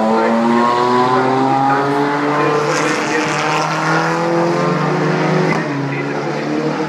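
Touring race car's engine accelerating hard out of a corner. Its pitch climbs, drops back and climbs again with the gear changes, then runs steadier near the end, over the hiss of tyres on a wet track.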